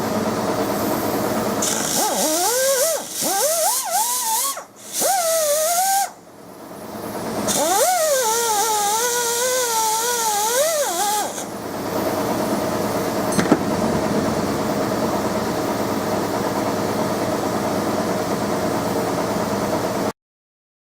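Power tool motor running steadily while a brass vise is worked against it. Its pitch dips and recovers repeatedly during the first half, and it cuts off suddenly near the end.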